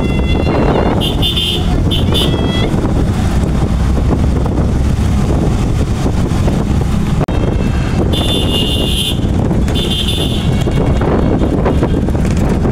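Vehicle horns in a slow motorcade honking in three blasts, about a second in, near the eighth second and again shortly after, over a steady low rumble of the vehicles moving.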